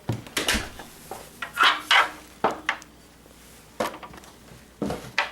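Hard objects clattering: an irregular string of sharp knocks and clicks, loudest about two seconds in.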